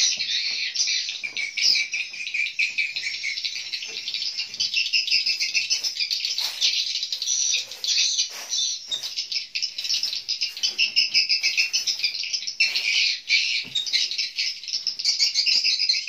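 Edible-nest swiftlets twittering: a dense, high-pitched, continuous chorus of swiftlet calls filling a swiftlet house.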